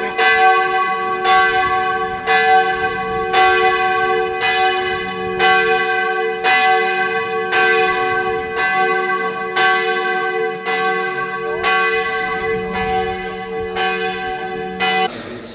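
Church bell tolling, struck about once a second, each stroke ringing on into the next. The ringing cuts off suddenly near the end.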